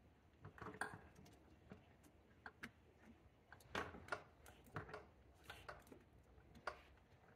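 Faint, irregular plastic clicks and taps from hands working an electrical wiring connector onto the intake manifold's MAP sensor.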